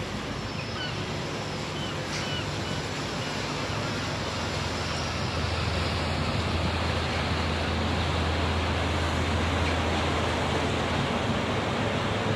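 Small fishing boat's engine running as it motors along the harbour: a steady low hum that grows louder in the second half, over a wash of wind and water noise.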